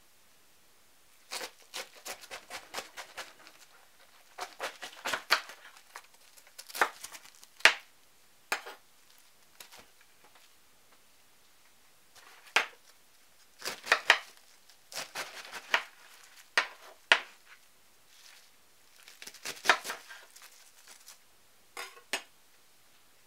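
Kitchen knife cutting a head of raw cabbage on a cutting board: crisp crunching cuts with the knife knocking the board. The cuts come in irregular bursts of several quick strokes, with short pauses between the bursts.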